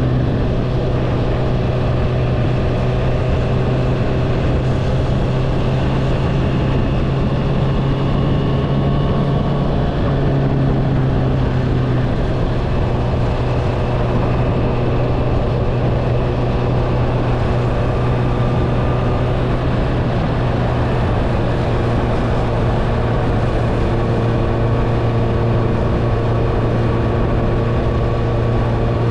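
Honda CBR650R inline-four with an Akrapovič exhaust running steadily at cruising speed under way, with wind rush. The engine note holds nearly even and shifts slightly about twelve seconds in.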